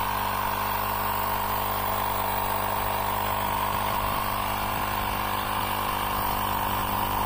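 UIBI X5 jump starter's built-in portable air compressor running steadily, inflating a car tire from about 30 psi toward a 35 psi target.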